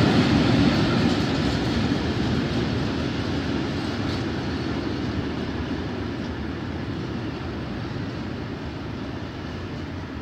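Freight train of covered hopper wagons rolling away on the rails, the steady rumble of its wheels fading evenly as it recedes.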